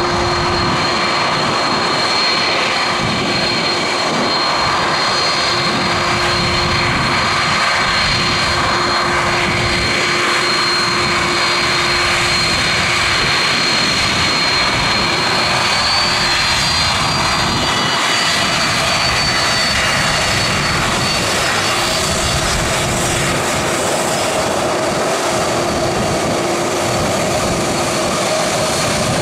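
Aircraft engines running loud and steady for the whole stretch, a thin high whine over a constant rush of noise.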